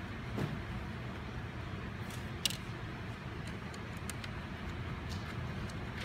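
A steady low background rumble with a few light, sharp clicks and ticks, the loudest about two and a half seconds in. The clicks are a screwdriver working the small back-plate screws of a mini PC's metal case.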